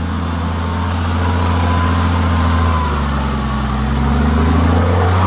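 Mercedes G-Class (W463) 3.5-litre turbodiesel engine running under load off-road. Its pitch dips about three seconds in and climbs again, with a thin whine above the engine note.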